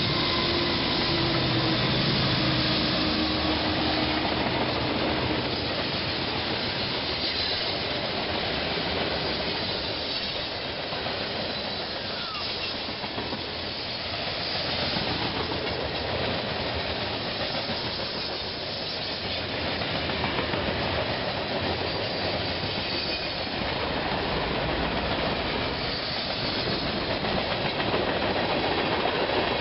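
A train passing close by: a steady rumble of wheels on rail with some clickety-clack, swelling and easing slowly. A low steady drone sounds in the first few seconds.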